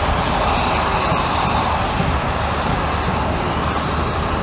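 Steady road noise inside a moving car: tyres and engine with a rush of wind, even and unbroken.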